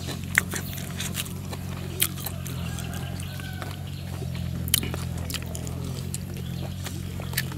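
Close-miked chewing of raw beef: wet mouth clicks and smacks scattered through, over a steady low hum.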